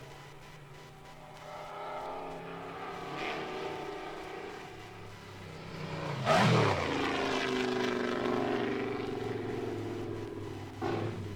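Mercedes-Benz Grand Prix racing car engine approaching at speed, passing loudly about six seconds in with its pitch dropping as it goes by, then running on and fading, with a brief sharp rise near the end.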